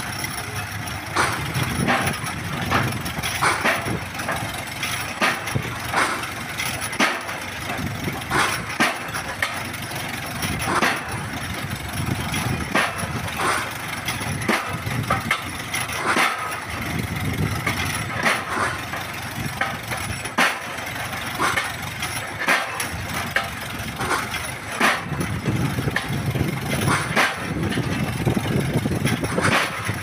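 Pile-driving rig at work: its winch engine runs steadily under sharp knocks that come roughly once a second, a little unevenly. The low engine sound swells louder near the middle and again towards the end.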